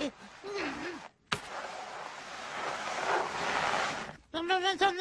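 Cartoon soundtrack: a sharp click, then a rushing whoosh of noise that swells and cuts off. Near the end comes a wobbling, high-pitched babbling cartoon voice in the manner of Pingu.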